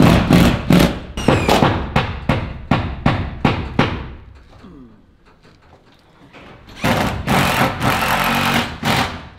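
Cordless drill boring holes through a steel ceiling panel overhead, first in short repeated bursts about three a second, then one steady two-second run near the end. The holes are pre-drilled because the screws were punching through the thin steel.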